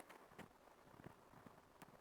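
Quiet plastic bubble wrap being handled between pops: four faint, scattered crinkling clicks, with no loud pop.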